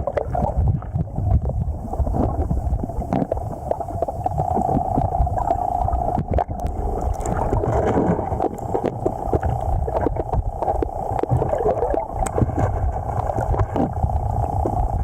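River water rushing and gurgling as heard by an underwater camera, a steady churning noise with many small clicks and knocks.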